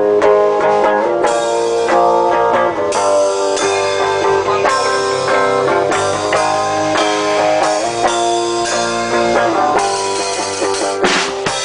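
A band playing live: guitar chords ringing and changing every second or two, with drum hits coming in near the end.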